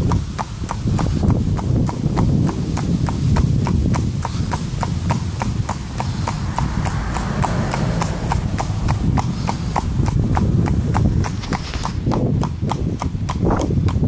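A horse walking at a steady pace on a paved path, its hooves clip-clopping evenly at about three hoofbeats a second.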